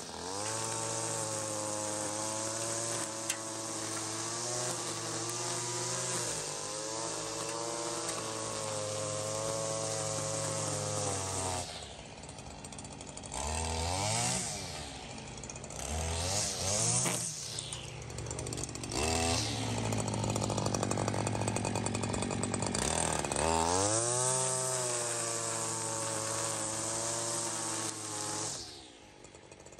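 String trimmer (weed eater) running and cutting grass and weeds down to the dirt. It holds a steady pitch for the first dozen seconds, then is revved up and let down several times before settling again, and it winds down just before the end.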